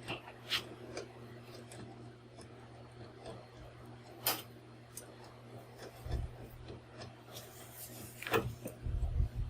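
Scattered sharp clicks and light knocks of tools and small metal parts being handled while rivnuts are installed, with a few duller thumps near the end over a low steady hum.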